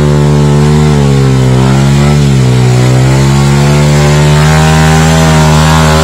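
Enduro dirt bike engine held at high revs. Its pitch sags about two seconds in and climbs back up.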